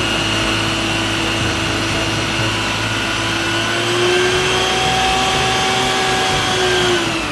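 Isuzu water tanker truck running its pump and roof water cannon: a steady mechanical whine over a rushing spray, its pitch dipping slightly near the end.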